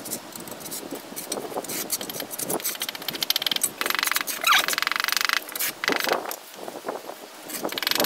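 Red clay bricks clinking and knocking as they are set in place, with a steel trowel scraping and tapping in mortar. A rapid rasping scrape runs for about a second and a half near the middle.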